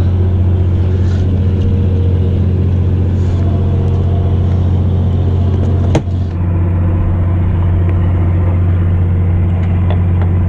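A fishing boat's engine running steadily with a deep, even hum. A single sharp knock about six seconds in, as the styrofoam fish box is handled.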